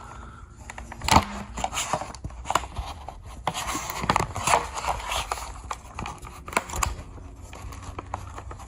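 Gordon 20-in-1 multi-tool being handled: a string of sharp metal clicks and knocks as its fold-out tools are worked, with a stretch of scraping in the middle.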